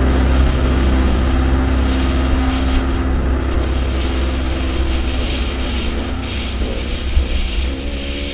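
Dirt bike engine running while riding, its pitch rising and falling with the throttle, with wind noise on the microphone.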